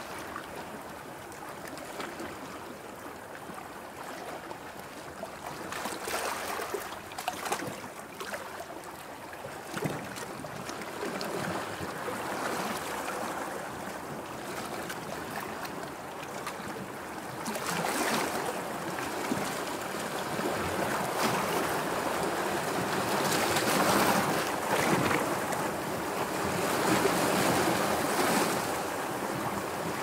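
Sea waves washing in: a steady rush of surf that swells and eases, growing louder a little past the middle.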